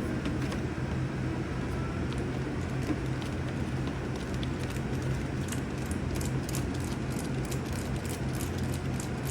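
Small hard plastic parts clicking and tapping as they are handled and fitted, a quick run of clicks starting about halfway through, over a steady low hum.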